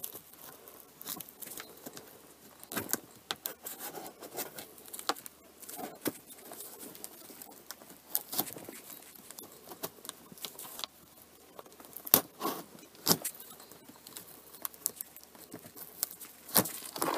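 Cardboard shipping box being handled and opened, with scraping and tapping on the cardboard at irregular moments and the small bell of a cat collar packed inside jingling as the box moves. The sharpest knocks come about twelve and thirteen seconds in.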